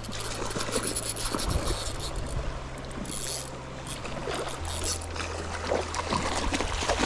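Flowing river water, with scattered clicks and rustles close to the microphone.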